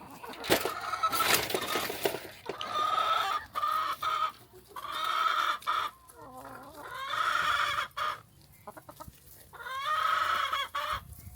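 Chickens calling, with four or five drawn-out calls of about a second each and shorter clucks in between.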